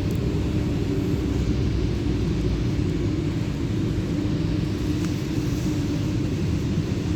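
Cabin noise of an MTR Rotem EMU train running on the track: a steady low rumble with a faint even hum underneath.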